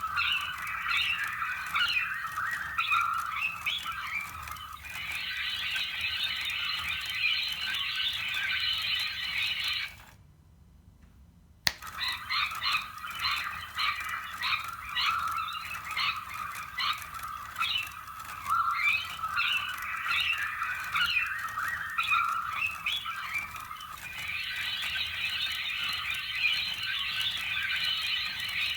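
Recorded lorikeet screeching and chattering played from a small lorikeet-sound novelty device's speaker. It cuts off about ten seconds in and starts again with a click a couple of seconds later.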